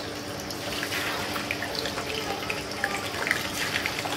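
Fish pieces frying in hot oil in a pan: a steady sizzle with crackling, spitting pops. The sizzle picks up about a second in as more pieces go into the oil.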